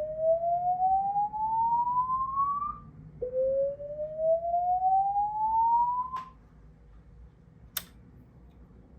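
Bosch Praesideo public address system sounding a slow-whoop evacuation alarm tone: two long rising whoops, each climbing steadily in pitch over about three seconds before cutting off. A sharp click follows near the end.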